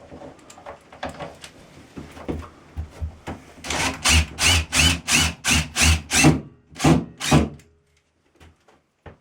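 A screw being driven to fasten a box: after some faint clicking, a run of about nine short, even strokes comes roughly three a second for about four seconds, then stops.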